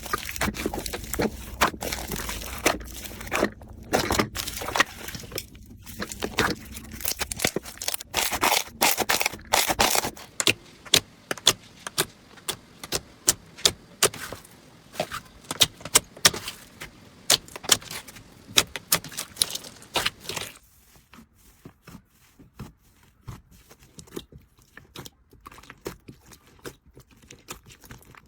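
Slime being worked by hand, making a dense run of sharp crackling pops and clicks. About twenty seconds in, the sound drops to quieter, sparser clicks.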